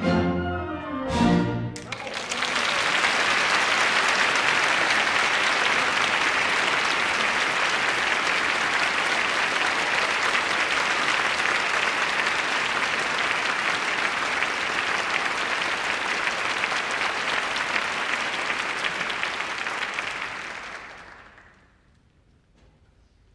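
An orchestra's closing chords, then a theatre audience applauding steadily for nearly twenty seconds before the clapping dies away near the end.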